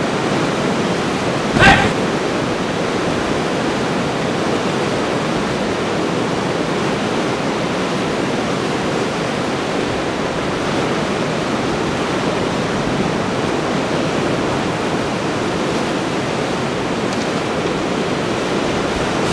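Steady rushing noise of rough sea surf breaking on a rocky shore, mixed with wind. One brief sharp sound stands out about two seconds in.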